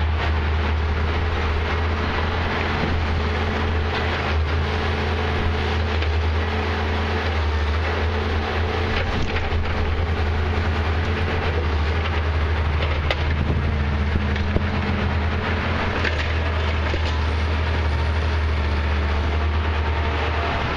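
Heavy diesel engine of a Prentice 210E knuckleboom log loader running steadily under load, with a few knocks and cracks of logs handled in its grapple.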